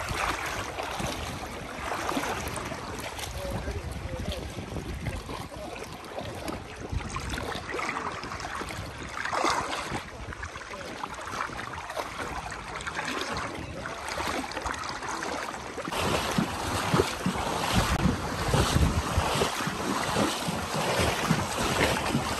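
Water sloshing and splashing around horses' legs as they wade through shallow sea water, with wind buffeting the microphone. The wind rumble gets heavier and louder for the last few seconds.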